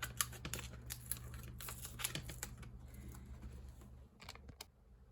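Small irregular clicks and scrapes of hands handling and repositioning sanding discs on a slot-car tire truer, thinning out after about three seconds with two last clicks near the end. A steady low hum runs underneath.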